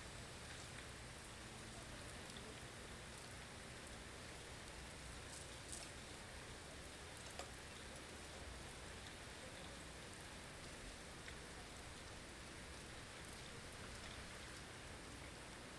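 Blizzard ambience: a faint, steady hiss of wind-driven snow, with a couple of faint ticks about six and seven and a half seconds in.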